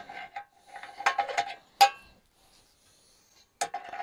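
A metal wrench clinking and scraping against a bolt head and the metal housing of a 1950s Coca-Cola fountain dispenser as it is tried for fit, with short ringing notes. There is a sharp clink a little under two seconds in, a brief pause, then more clinking near the end.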